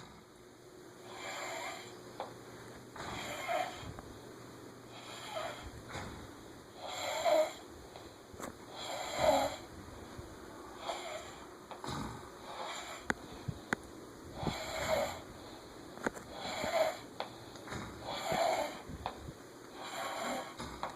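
Two people snoring, loud rasping snores repeating about every two seconds.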